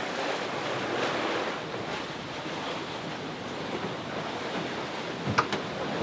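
Steady rush of sea and wind around a sailboat under way in a rough sea, with a few light clicks about five seconds in.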